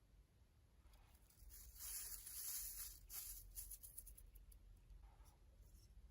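Faint crackling and squishing of slime being worked by hand, loudest for a second or two from about a second and a half in, with a few small clicks after.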